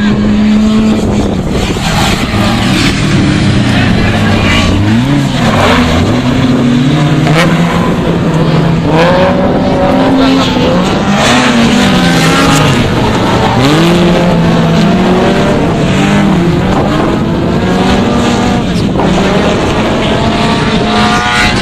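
Autocross race cars racing, their engines revving up and dropping back again and again through the corners, with more than one engine heard at a time.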